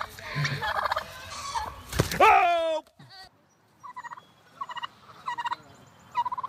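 Domestic turkey tom gobbling: a thump about two seconds in, then one loud, falling, warbling gobble, and later a few short, fainter calls about half a second apart.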